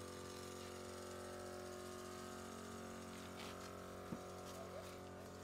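Steady hum of running machinery, with many even tones that do not change, like an electric motor or pump running. A faint single click about four seconds in.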